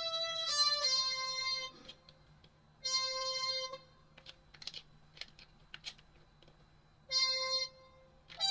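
Roland Aerophone Mini digital wind instrument playing single held notes one at a time, halting, with pauses of a second or more between them, as a learner picks out a melody. A few faint clicks sound in the longest gap.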